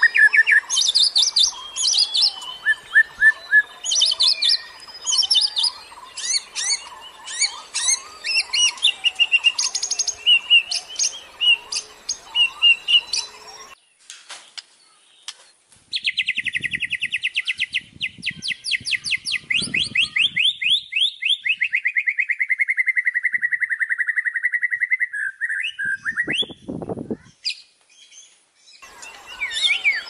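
White-rumped shama (murai batu) song: a rapid run of varied whistles and chirps that stops abruptly about halfway through, then after a short pause a long, fast trill that slowly falls in pitch for about nine seconds, with the song starting up again near the end.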